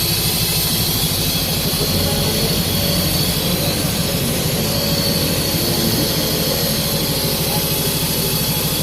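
Car engine idling with a cylinder misfire, running as a steady stream of low firing pulses: the idle speed has dropped and the engine is shaking.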